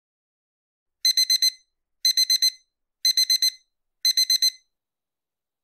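Digital alarm clock going off: four rounds of four quick high-pitched beeps, about one round a second, then it stops.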